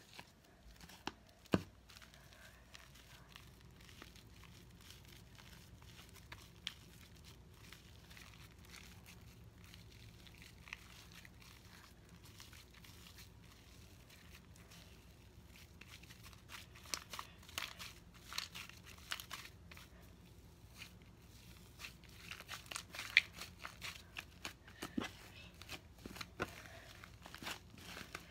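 Fluffy slime made of glue and shaving cream being squished and stretched by hand, giving faint crackling and sticky popping with sharp clicks here and there. It gets busier in the second half.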